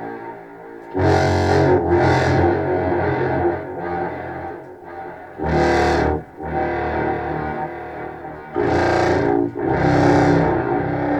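Contrabass clarinet played through effects pedals including a Walrus Fable granular delay, heard through studio speakers. Loud, distorted low notes swell in about a second in, around five and a half seconds, and twice near the end, over a continuing bed of delayed, repeating tails.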